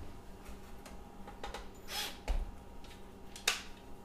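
A few scattered clicks and taps, the sharpest near the end, from hands handling a sheet-metal battery-compartment faceplate and a cordless drill as the door is set back in place.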